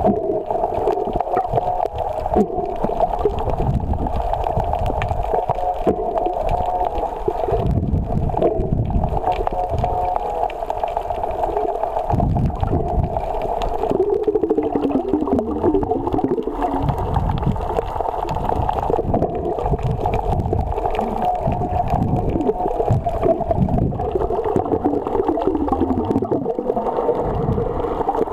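Underwater sound from a camera held below the surface: a steady, muffled watery rumble that swells and fades every second or two, with a constant hum running through it.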